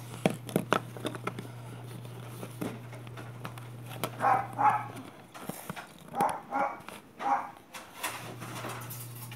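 Jigsaw puzzle pieces clicking and tapping on a tabletop, mostly in the first second. Several short calls follow, mostly in pairs, from an animal, over a steady low hum.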